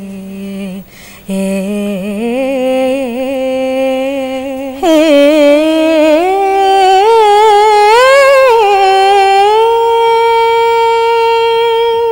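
Two women singing a Carnatic kriti to Saraswati, unaccompanied: a slow, heavily ornamented phrase in a lower voice, then about five seconds in a louder, higher voice takes over, wavering up through the melody and settling on a long held note near the end.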